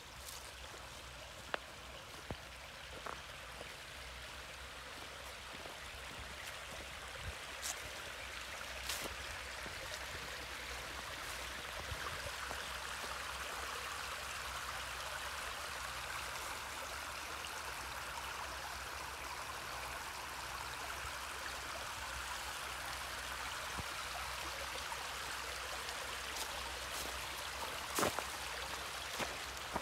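Small woodland creek running over rocks, a steady babbling rush that grows a little louder over the first several seconds and then holds. A few sharp clicks cut through it, the loudest near the end.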